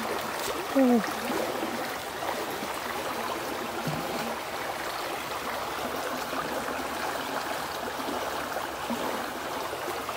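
Steady rush of flowing stream water. A brief falling vocal sound about a second in stands out above it.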